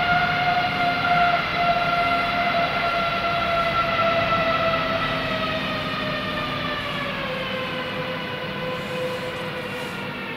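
Airbus A321 turbofan engines whining at power over a rushing noise, the whine dropping in pitch about seven seconds in as the sound eases off: the engines spooling down from taxi power during a low-speed taxi check.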